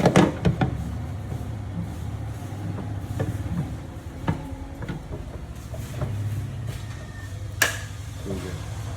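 Sharp knocks and clicks of dent repair work on a car body panel, a quick cluster in the first second and a single sharp one near the end, over a steady low hum.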